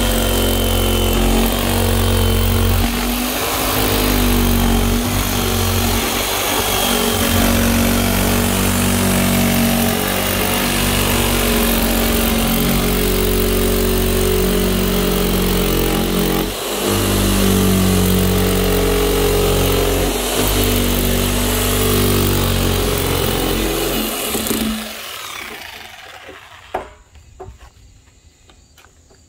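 Corded jigsaw running as its blade cuts through the top of a plastic 55-gallon drum. The motor whine is steady, with a few brief dips, and it stops near the end, leaving a few faint clicks.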